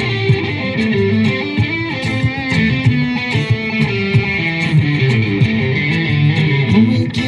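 Music: an instrumental passage of a song with electric guitar, bass guitar and a steady beat.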